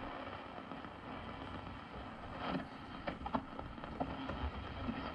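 Gilfillan 711T tube radio being tuned across the AM band: hiss and static with short snatches of stations breaking through, about two and a half seconds in and again a little later. The reception is noisy, which the owner puts down to interference from a running refrigerator.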